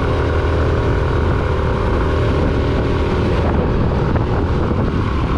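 Motorcycle engine running steadily while riding, with wind noise on the microphone.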